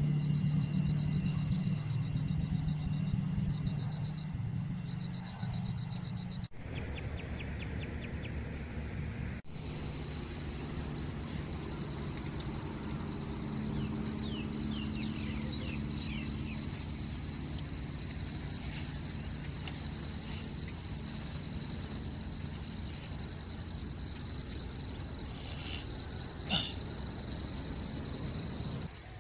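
Insects trilling in a loud, steady, high-pitched chorus, with a few short bird chirps. A low steady hum is there during the first few seconds.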